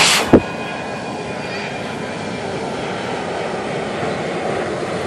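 A brief rustle and a sharp knock right at the start as the metal sand scoop and camera are handled, then a steady low background rumble.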